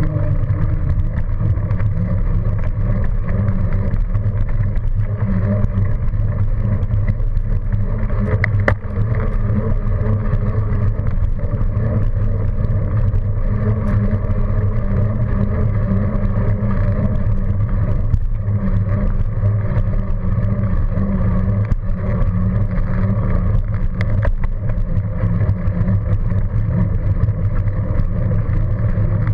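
Steady low rumble of wind buffeting a bicycle-mounted camera's microphone, mixed with tyre and road noise and nearby car traffic. A faint sharp click comes about nine seconds in.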